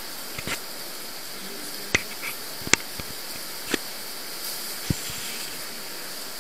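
Steady rushing hiss of the Neglinka underground river flowing in its collector tunnel, broken by about five sharp splashes and knocks of wading steps in the water. The loudest comes nearly three seconds in.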